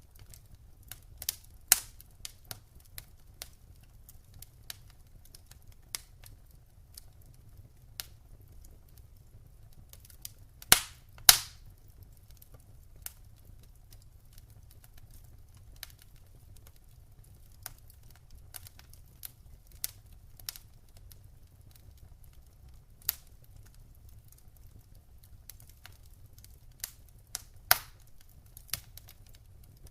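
Wood fire crackling in a fireplace: scattered sharp pops and snaps at irregular intervals, with two louder pops in quick succession about a third of the way through, over a faint low steady rumble.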